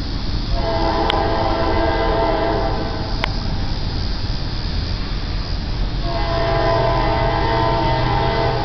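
Five-chime Nathan K5LA air horn on an approaching Norfolk Southern GE Dash 9-40CW locomotive, sounding two long blasts of a steady multi-note chord. The first starts about half a second in and lasts nearly three seconds, and the second starts about six seconds in. A low rumble runs underneath.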